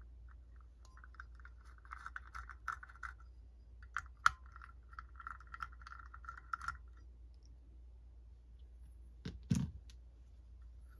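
Small screwdriver working the screws of a Ford alternator's brush holder: two stretches of rapid metal-on-metal scraping and clicking, then a single knock near the end.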